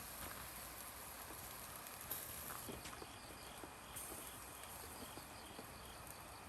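Pork ribs cooking over a charcoal fire: a low, steady hiss with scattered small crackles and ticks. A faint, evenly repeating high chirp from insects joins from about three seconds in.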